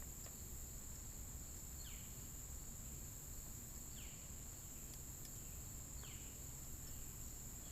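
Steady high-pitched chorus of insects such as crickets, with a short falling call repeating about every two seconds over a low background rumble.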